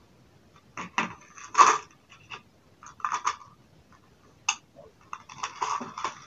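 Irregular light clicks and rattles of small screws and a screwdriver being picked up and handled on a work table, with one sharper click about four and a half seconds in.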